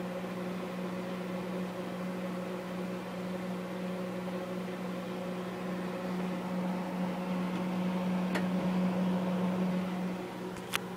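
Microwave oven running with a steady hum while heating melted gobstoppers, with a sharp click near the end.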